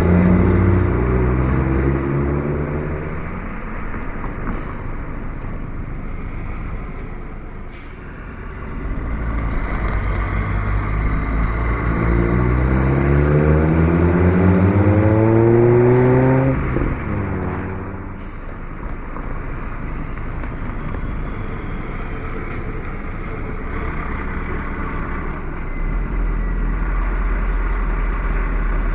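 DAF XF95 truck's diesel engine pulling hard, its note rising in pitch as it accelerates: a short climb at the start, then a longer rising pull about nine to sixteen seconds in that breaks off sharply at a gear change. Between and after the pulls it runs on more steadily under road noise.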